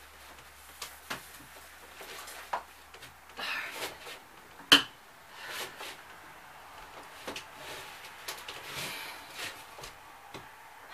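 Scattered light knocks, rustles and scrapes of a person moving about on the bare plywood floor inside a small camper, with one sharp knock a little under five seconds in.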